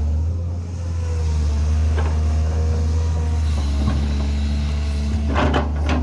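Hydraulic excavator's diesel engine running steadily with a low drone. A knock comes about two seconds in and another near four seconds, then a cluster of knocks and rattles near the end as the machine digs.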